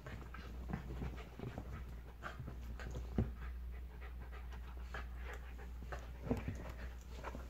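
A Shetland sheepdog and a Jack Russell terrier play-wrestling on couch cushions: quick panting and scuffling, with a sharper knock about three seconds in and another just past six seconds.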